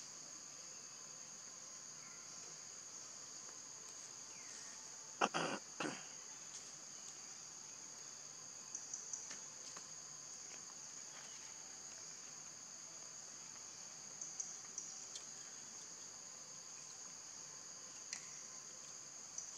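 Steady high-pitched drone of insects in the forest canopy, held on two close tones. A few short clicks sound over it, the loudest a quick cluster about five seconds in.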